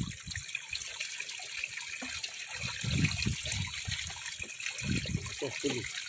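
Shallow muddy water trickling and sloshing as hands work in it, with soft swells of splashing about three and five seconds in.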